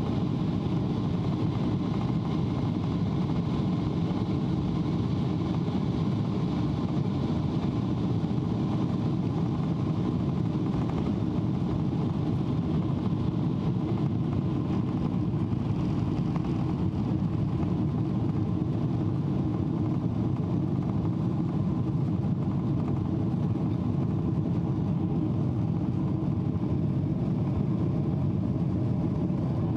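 A Boeing 777's twin jet engines at takeoff power, heard inside the cabin: a steady, loud low rumble with faint high whining tones above it, through the end of the takeoff run, lift-off and first climb.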